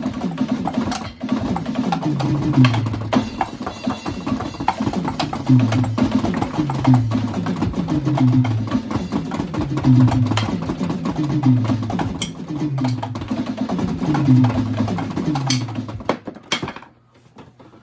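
Electronic drum kit being played, a busy beat with a low part that steps down in pitch and repeats about every second and a half; the playing stops about a second before the end.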